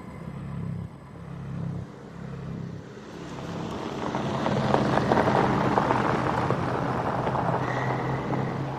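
A motor vehicle's engine running with a low hum, growing louder from about halfway through, with a rough noise over it.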